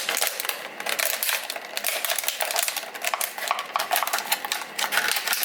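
Thin plastic water bottle crackling and crinkling as a utility knife slices through it, a dense run of irregular small clicks.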